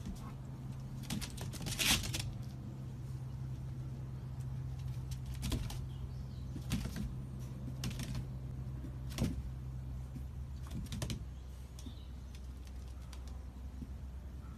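A small dog's claws clicking and tapping on a patio surface in scattered bursts as it hops around, over a steady low hum.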